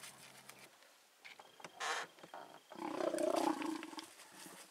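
Injured leopard snarling defensively at hyenas: a short sharp hiss about two seconds in, then a harsh growl lasting about a second.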